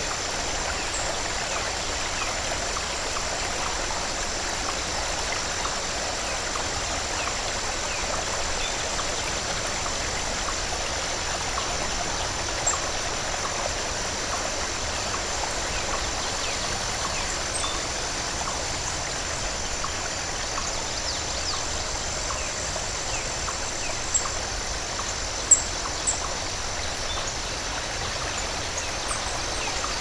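Water rushing steadily over a low, wide waterfall and splashing into the pool below. A few brief high-pitched chirps come near the end.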